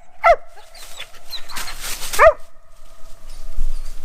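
Mountain cur barking at a tree where it has a squirrel treed: two sharp barks about two seconds apart, with a brief rustle between them and a faint steady tone underneath.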